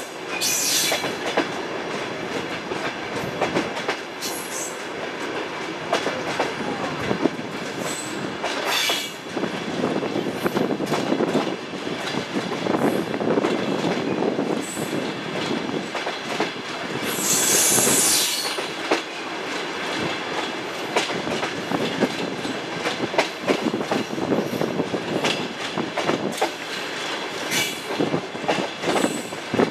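Suburban passenger train's wheels running over the rails, heard from aboard, with a clickety-clack rattle and a few brief high wheel squeals: one right at the start, one about nine seconds in and a longer one around seventeen seconds in.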